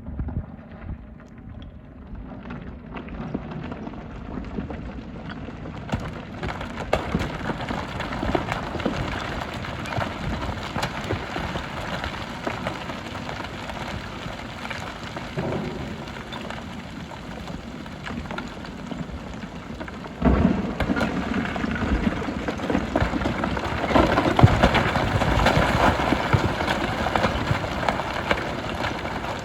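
Gravel and stones clattering and pouring as a Hyundai HX300 excavator's bucket digs and gathers aggregate, with the machine's engine running underneath. The clatter builds over the first few seconds and jumps suddenly louder about twenty seconds in.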